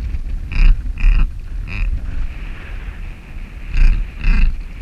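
Duck call blown in short raspy notes, three in quick succession and then two more near the end, calling to passing ducks. Wind rumbles on the microphone underneath.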